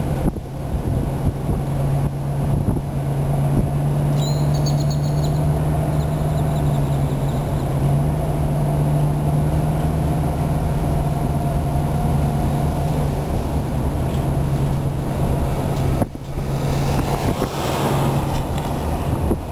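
Car engine running and tyres rolling at low speed, heard from inside the cabin as a steady low hum with road noise. A louder rushing noise rises briefly near the end.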